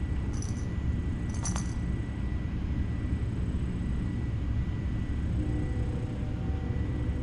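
Two brief metallic jingles about a second apart near the start, over a steady low rumble and a faint high electrical whine.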